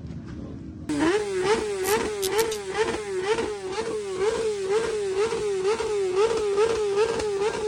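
An engine held at high revs, starting suddenly about a second in, its pitch wobbling up and down about twice a second.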